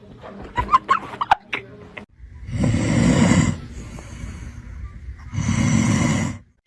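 Two long, loud, rasping snore-like sounds from an animal, each about a second long and about three seconds apart. Short clicks and chirps come before them.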